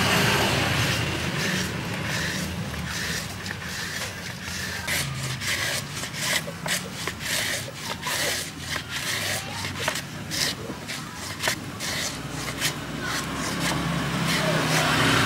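Raw banana pushed by hand across a plastic mandoline slicer's blade, stroke after stroke. Each pass is a short rasping scrape, about one to two a second, not quite evenly spaced.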